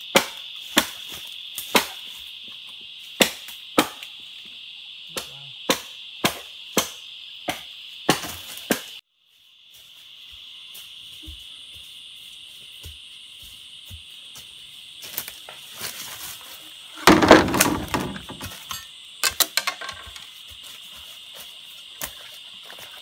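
Chopping strokes into bamboo with a blade, about two a second, over a steady high drone of insects. The chopping cuts off abruptly; later comes a loud burst of rustling and knocking lasting about a second, followed by a few scattered strokes.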